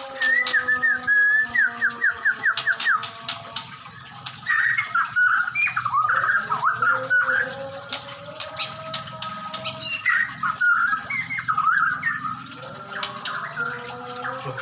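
Murai (white-rumped shama) singing loudly: a fast run of repeated notes at the start, then two bursts of rapid, varied warbling, about four and ten seconds in. Steady held whistled tones run underneath.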